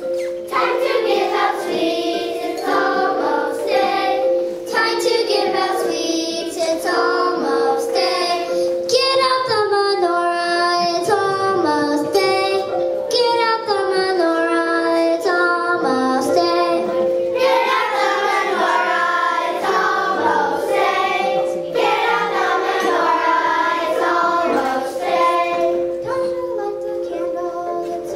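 A children's choir singing a song together, accompanied by an Orff xylophone and metallophone played with mallets, over a steady held chord.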